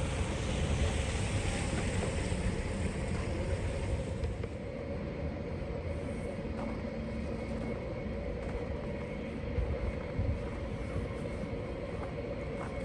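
Steady outdoor city ambience: a low rumble and hiss with a constant hum underneath, the higher hiss easing off about four seconds in.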